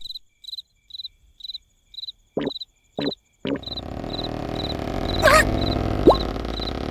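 Cartoon night ambience of cricket chirps, about two a second. About halfway through, a louder noise starts and grows, with a short rising whistle near the end.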